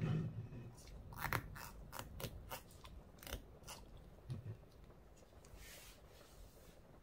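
Cork stopper being pushed and worked into the neck of a glass jar by a gloved hand: a run of short creaks and clicks over the first three seconds or so, with a soft thump at the start and another about four seconds in. A brief rustle follows near the end.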